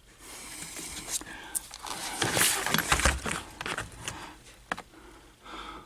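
Handling noises in the engine bay: scraping, rustling and a few clicks, loudest about two to three and a half seconds in, with faint muttering.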